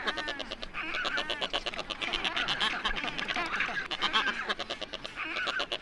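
Mixed colony of black-browed albatrosses and rockhopper penguins calling: a dense chorus of overlapping, rapidly pulsed calls, many rising and falling in pitch.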